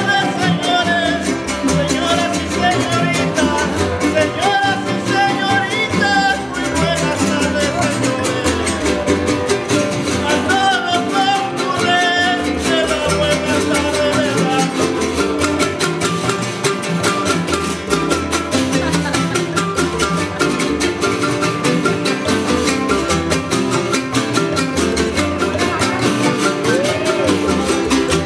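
Son jarocho ensemble from Veracruz playing jaranas and other small plucked guitars in a steady strummed rhythm, with a man singing verses in the first half; the rest is strumming alone.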